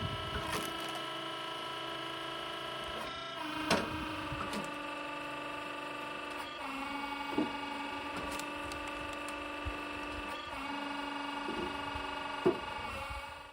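Small tractor engine driving a hydraulic log splitter, running steadily and dropping in pitch twice as it takes load, with a few sharp cracks of wood splitting.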